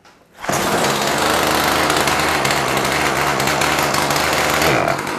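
Poulan Pro PP4218A 42cc two-stroke chainsaw engine catching about half a second in and running steadily, then dropping in pitch near the end as it bogs down, a fault the owner sets out to cure by changing the carburetor.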